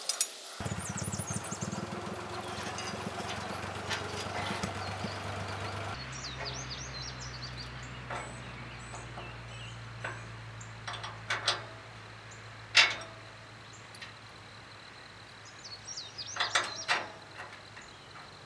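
Sharp metal clanks and knocks as steel parts of a hay rake are fitted and bolted together: a pair of knocks, one louder clank, then a short cluster near the end. Under them a steady low engine hum runs, with birds chirping.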